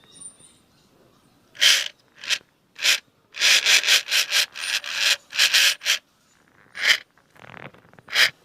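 Short, rough rubbing strokes: three spaced apart, then a quick run of about eight, then three more.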